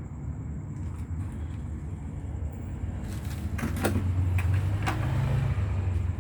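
A vehicle engine running steadily, getting louder about halfway through, with a few sharp metallic clicks and knocks.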